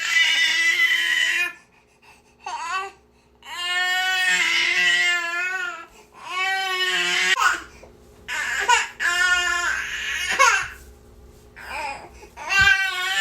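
Infant crying nonstop: a string of loud wails, each lasting up to about two seconds, with short gasps for breath between them.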